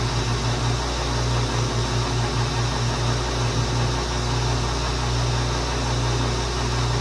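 Old South Bend 16-inch metal lathe running steadily, its motor and drive giving a low, rapidly fluttering hum under a steady hiss, while a small hole is drilled in aluminum stock.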